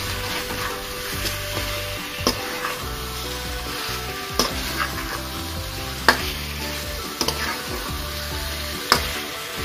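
Chicken pieces in thick masala sizzling in a stainless steel wok while a metal spatula stirs and scrapes them, with several sharp clinks of the spatula against the pan.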